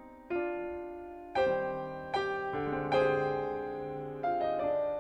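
Background music: slow solo piano, single notes and chords struck about once a second and left to ring out.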